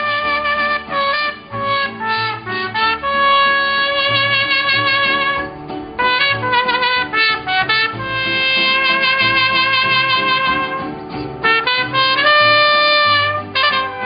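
Mariachi band playing an instrumental passage: a trumpet carries the melody, alternating long held notes with quick runs of short notes, over a pulsing bass line.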